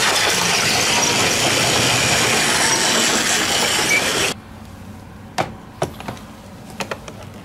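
Battery-powered Plarail toy trains running on plastic track close by, a loud steady running noise. It cuts off abruptly about four seconds in, followed by a few sharp clicks of plastic layout pieces being handled.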